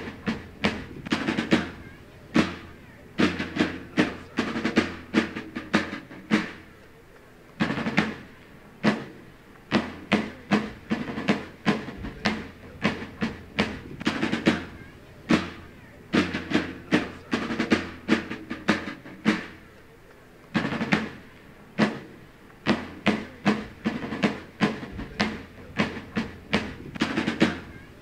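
A marching field drum beating a cadence of sharp repeated strokes and rolls, broken by short pauses between phrases.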